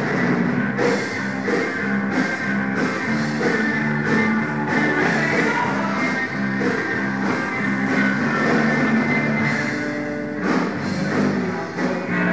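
Rock band playing live through a PA: electric guitar, bass and drum kit, with a steady beat of cymbal and snare strokes.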